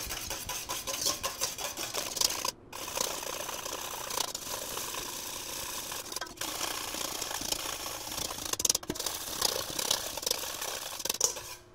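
Wire whisk beating egg yolk and olive oil into mayonnaise in a stainless steel bowl, played back fast-forwarded so the strokes run together into a fast, continuous rattle. It drops out briefly a few times.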